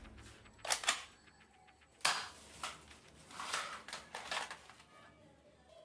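Plastic toy guns being handled and set down on artificial grass: a few separate knocks and rustles, the sharpest about two seconds in.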